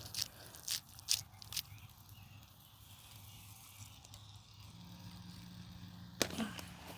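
Four short, light knocks in the first second and a half, then faint quiet background with a low steady hum coming in later and one more knock near the end.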